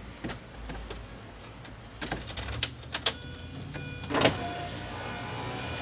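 A few clicks and knocks, then about four seconds in a 2003 Mini Cooper's power window motor starts with a clunk and runs steadily, raising the door glass, with the door panel removed.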